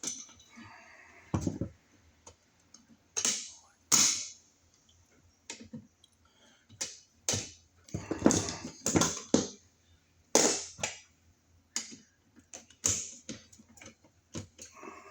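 Irregular clicks and knocks of a plastic outlet box extension and outlet being pushed and worked back onto the wall box's mounting screw.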